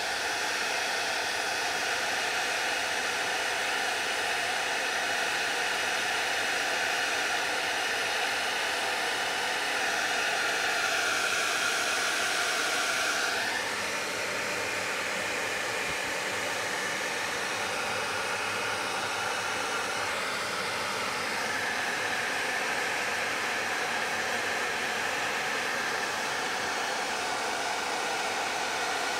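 Heavy-duty Hot Tools hair dryer running steadily, a loud blowing hiss with a hum in it. Its tone shifts slightly about halfway through.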